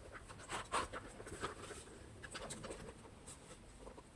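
Faint handling sounds of a leather Saint Laurent Cassandra handbag being opened and its interior shown: scattered soft clicks and rustles.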